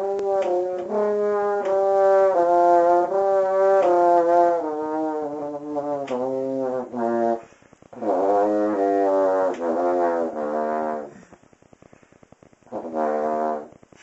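A brass horn played solo: a run of separate, moving notes for about seven seconds, a second phrase after a short breath, then a pause and one short note near the end.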